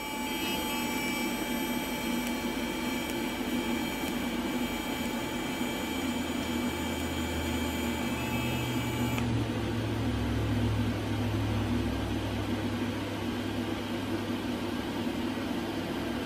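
TIG welding a joint on stainless steel exhaust pipe: the arc and welder give a steady hum. A thin high whine in it cuts off abruptly about nine seconds in.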